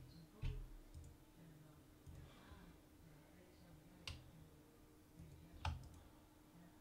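Computer mouse clicking three times, shortly after the start, about four seconds in and again a second and a half later, over a faint steady hum.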